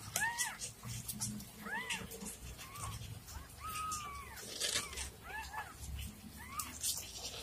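Newborn kittens mewing: about eight short, high-pitched mews that each rise and fall in pitch, one held longer near the middle. Light rustling and clicks as the kittens crawl about.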